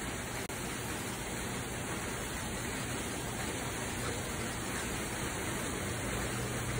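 Steady hiss-like noise with a constant low hum underneath, with no distinct events; it drops out for an instant about half a second in.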